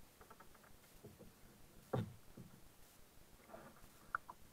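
Faint knocks on a plastic kayak hull, with one louder thump about two seconds in, as a paddle and a paddler shift against the boat.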